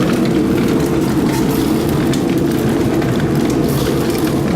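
Water-powered grist mill running, its millstones grinding corn, a steady low rumble.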